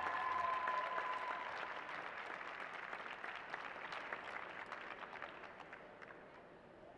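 Arena crowd applauding and clapping, gradually fading out over several seconds.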